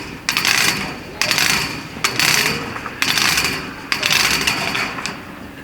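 Hand-made foley sound effect: a crunching, scraping stroke repeated at an even pace of about one per second, each stroke starting sharply and trailing off.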